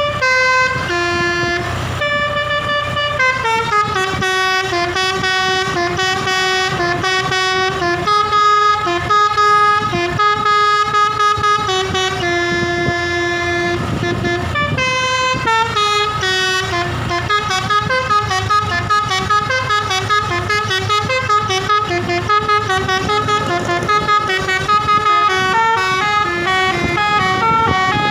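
Basuri V3 telolet horn, a bus's multi-trumpet musical air horn, played by hand through a sholawat melody note by note. Held notes give way to quicker, shorter ones in the second half, over a steady low hum.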